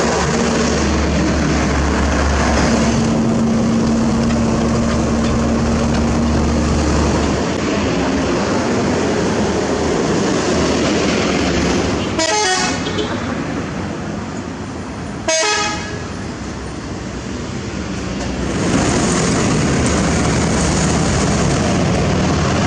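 Road traffic with a heavy diesel truck running close by and a vehicle horn held for about four seconds a few seconds in. The sound changes abruptly about fifteen seconds in, and the truck's engine then runs on steadily.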